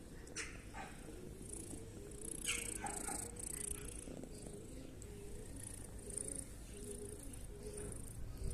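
Domestic cat purring, a low continuous rumble, with a few brief clicks.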